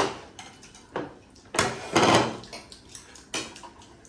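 Eating utensils clinking and scraping against a bowl a few times, with a longer scrape about two seconds in.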